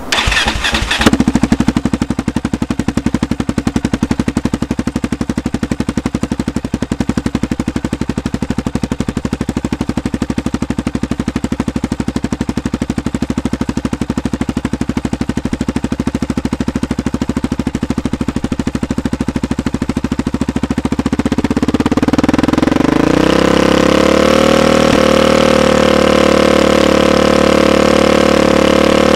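Yamaha Raptor 660 ATV's single-cylinder four-stroke engine, breathing through a loud straight-through competition exhaust, idling with an even pulsing beat; about 22 seconds in it is brought up to a steady half-throttle speed and held there for a sound-level test. The pipe is excessively loud, measuring around 105 to 107 dB at the test speed.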